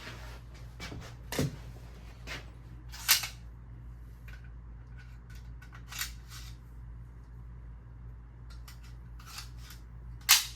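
Scattered sharp clicks and snaps from a nail gun being handled and reloaded with a fresh strip of nails after it ran empty, about five over the stretch, a few seconds apart, with a low steady hum underneath.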